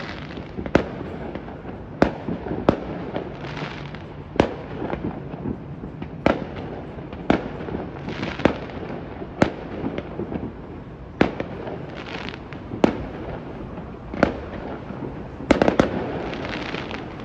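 Fireworks going off: about a dozen sharp bangs, one every second or two, over a steady crackling rumble, with a quick cluster of bangs near the end.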